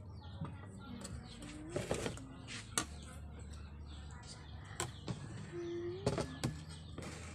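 Spoons and a ladle clinking against plates and an aluminium serving tray as food is dished out: a few separate sharp clicks. A faint bird call sounds behind them.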